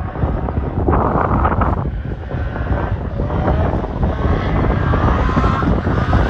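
Renault Clio 172 rally car's 2.0-litre four-cylinder engine running hard at high revs. A burst of rushing noise comes about a second in, then the engine note climbs steadily over the next few seconds as it accelerates.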